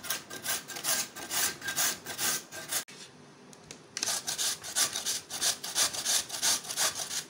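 Pumpkin flesh being grated on the medium holes of a stainless-steel box grater: quick, even rasping strokes, about three or four a second. They pause for about a second just before three seconds in, then carry on.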